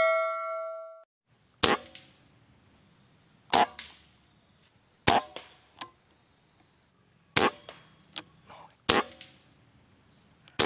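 A bell-like ding fading out in the first second, then six sharp shots from a suppressed PCP Mouser air rifle, spread about one and a half to two seconds apart, each followed by a fainter knock.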